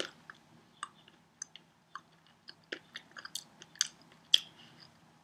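A person chewing a jelly bean with her mouth closed: small, irregular clicks that come more often in the second half.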